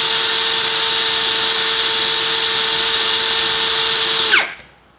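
Yasuka YID318 cordless brushless impact drill running free in low gear (speed 1, drill mode), its chuck turning about 553 RPM, a steady whine. Near the end it winds down in pitch and stops.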